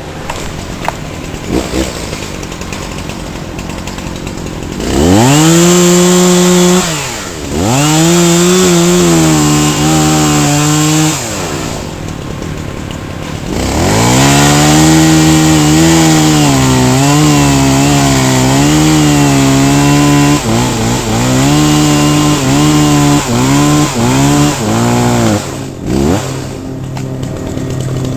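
Two-stroke chainsaw revved to full throttle in long runs while cutting wood, its pitch wavering as the chain loads up in the cut, then a quick series of short throttle blips near the end.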